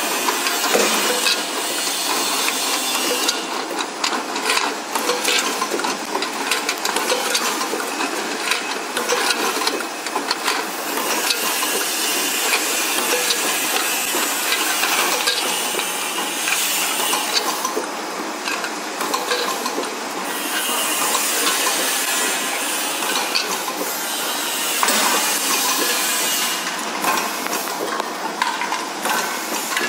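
Automatic rotary aluminium-tube filling and sealing machine running: a steady mechanical clatter with many small clicks and knocks as the turntable indexes and tubes are fed into their holders.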